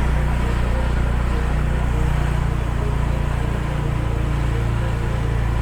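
Steady low rumble of a vehicle's engine and road noise while it moves slowly along, with no distinct events.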